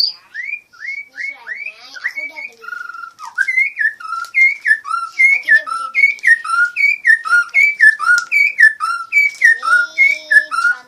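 Whistled notes repeating in a two-note pattern, a high sliding note followed by a lower one, about twice a second.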